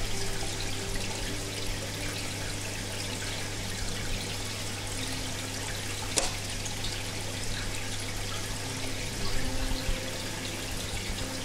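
Aquarium water trickling and splashing steadily, with a constant low hum underneath and one sharp click about six seconds in.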